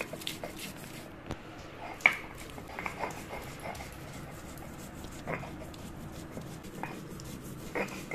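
Stone roller rocking and scraping on a flat stone grinding slab (shil-nora) as green chillies are ground to paste. A few short high-pitched sounds rise over it, the loudest about two seconds in.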